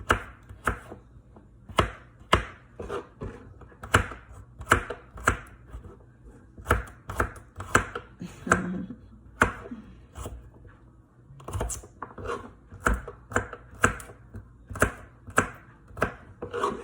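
Kitchen knife chopping garlic cloves, uneven strokes about two a second, with a short pause around ten seconds in.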